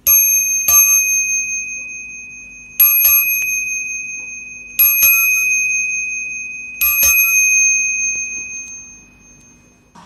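Cateye lever-struck bicycle bell rung in four bursts about two seconds apart, each burst two or three quick strikes. A clear, high ring follows each burst and slowly fades.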